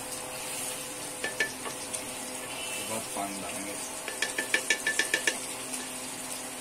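Wooden spatula stirring chicken curry masala in a granite-coated pan, knocking and scraping against the pan, with a quick run of about ten taps a little past halfway. Under it the masala sizzles steadily as it fries down on medium flame, the oil separating from the spices.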